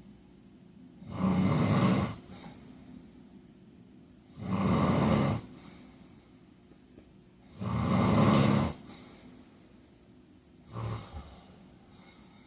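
A man snoring: four snores about three seconds apart, each lasting about a second, the last one shorter and weaker.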